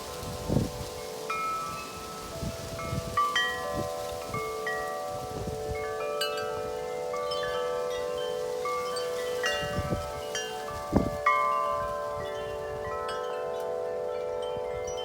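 Wind chimes ringing in strong wind: many overlapping tones, struck irregularly and constantly. Gusts of wind buffet the microphone about half a second in and again twice around ten to eleven seconds.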